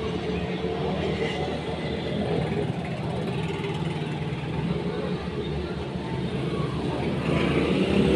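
A steady low mechanical hum from a running motor.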